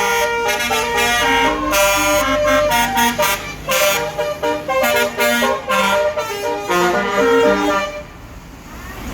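Tour bus's Basuri telolet musical horn playing a tune, a quick run of changing notes that stops about eight seconds in. A low engine rumble sits under the first few seconds.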